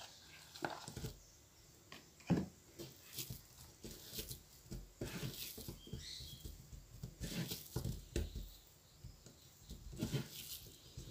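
A crumbly slime mixture that has not set is tipped out of a plastic tub and crumbled between the fingers onto a tabletop, with soft irregular pattering and light knocks. One sharper knock comes about two and a half seconds in.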